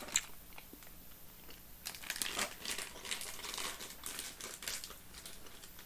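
Plastic packet of Allen's Minties sweets crinkling as it is handled and opened, in irregular rustles that are thickest in the second half.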